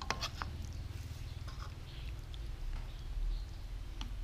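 A spoon and chopsticks scrape and click faintly against a wok as noodles are lifted and mixed, over a steady low hum. A short high squeak comes right at the start.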